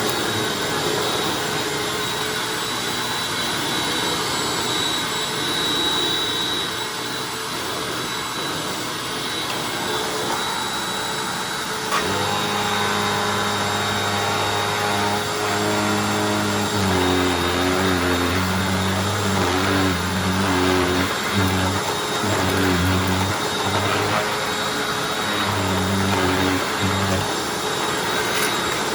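Hoover Anniversary upright vacuum cleaner running steadily with a high motor whine as it vacuums a small rug. About twelve seconds in, a low hum joins it; the hum shifts pitch in steps and cuts in and out.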